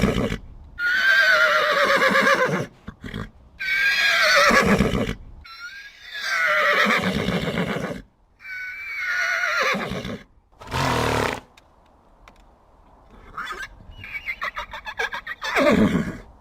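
Horse whinnying over and over: about five long, quavering neighs that fall in pitch, then a short call, a rapid fluttering series and a last falling neigh near the end.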